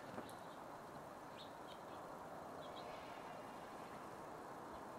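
A few short, high bird chirps near the middle, over a faint steady background hiss.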